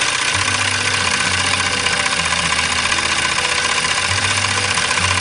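Toy twin-cylinder stationary steam engine running steadily at speed: a continuous fast mechanical clatter with a hiss, a bit clanky but running smoothly.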